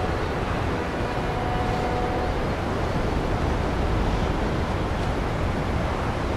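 Steady harbour ambience: a low rush of wind and water, with a faint hum that fades out a little over two seconds in.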